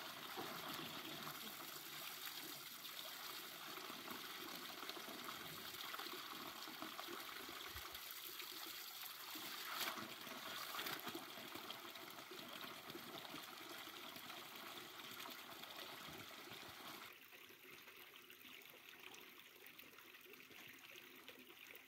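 Spring water trickling and splashing as it runs out of a pipe onto stones and a shallow pool. It becomes quieter about three-quarters of the way through.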